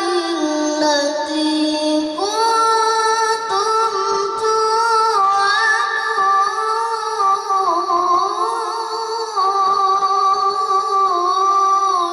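A boy reciting the Quran in the melodic tilawah style into a microphone, in a high child's voice. He holds long, ornamented notes that slide between pitches, stepping up to a higher note about two seconds in.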